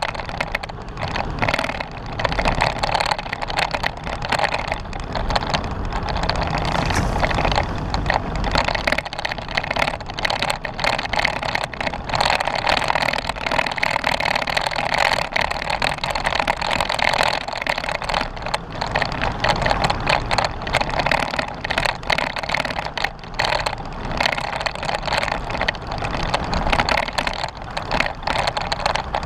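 Jeep Wrangler driving along a dirt off-road trail: a steady rumble of running gear and tires on rough ground, thick with constant small clatters and rattles.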